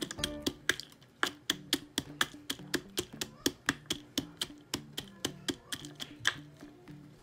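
Wooden pestle pounding in a wooden mortar: quick, even knocks about four a second, with background music underneath.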